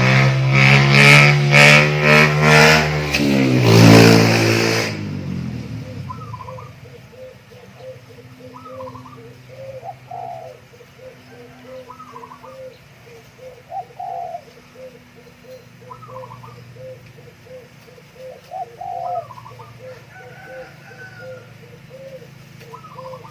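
A loud droning sound that rises in pitch and stops about five seconds in. After it, doves cooing, with short calls repeated every couple of seconds.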